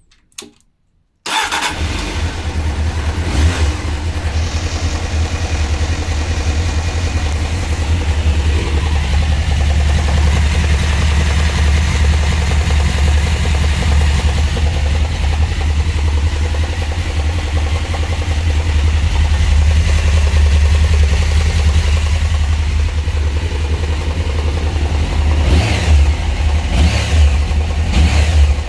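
Honda CBR600 F3 inline-four engine running at idle from about a second in, with the knocking rattle its owner cannot explain; he finds it loudest at the water pump with a stethoscope, it persists with the clutch pulled in, and he suspects the oil pump or its drive. Near the end the engine is revved briefly a few times.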